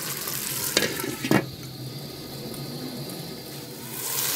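Aubergine and potato curry sizzling in a pan as it is stirred with a spatula, with two sharp knocks against the pan about a second in. After the knocks the sizzle goes quieter and duller, and louder sizzling returns near the end.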